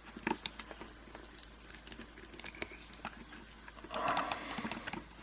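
Scattered light metallic clicks and scrapes of a screwdriver working a small screw out of a hardened-steel padlock body, with a brief soft rustle about four seconds in.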